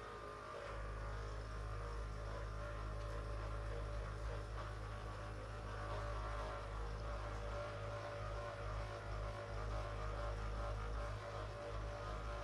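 A steady low electrical hum that comes on about half a second in and holds, with a fainter buzz above it.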